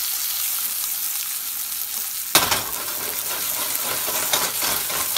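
Chicken and chopped kale sizzling in oil in a frying pan, a steady high hiss. A sharp knock comes about two and a half seconds in, followed by irregular scrapes and clicks.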